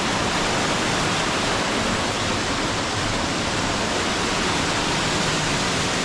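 Waterfall: falling water rushing steadily.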